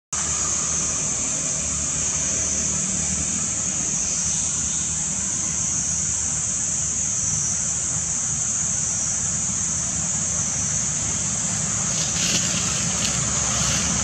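Steady outdoor ambience: a continuous high-pitched insect drone over a low steady rumble, with a few faint clicks near the end.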